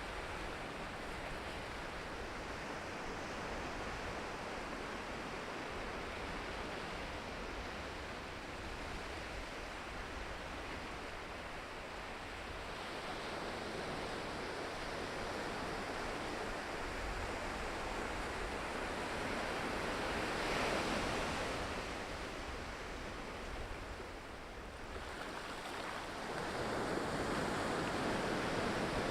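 Ocean waves breaking and washing on the shore, a continuous surf rush that swells into a louder wave about twenty seconds in, eases off, then builds again near the end. A low rumble runs underneath, with some wind on the microphone.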